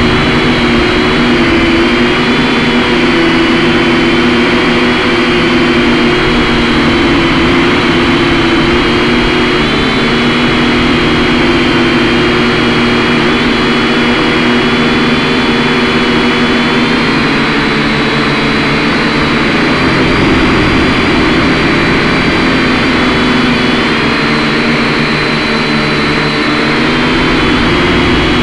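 Syma X5C quadcopter's four small brushed motors and propellers whining steadily in flight, heard loud and close through the drone's own onboard camera. Several high tones waver slightly in pitch as the motor speeds shift.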